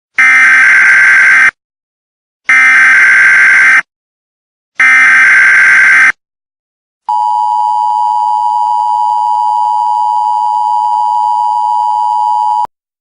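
Emergency Alert System (EAS) alert opening: three loud, buzzy digital data bursts of the SAME header, each about a second and a half with short pauses between, followed by the two-tone attention signal, a steady dual tone held for about five and a half seconds that cuts off suddenly.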